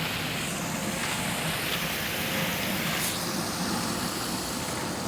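Steady rush of running water, an even hiss with no break.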